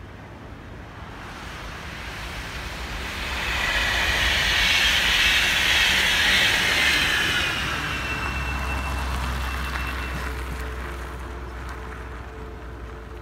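Freight train of grain hopper wagons rolling slowly over the rails with a low rumble, a rising and falling hiss of wheel and road noise, and a thin high squeal for about two seconds past the middle. A car drives past on the road during it.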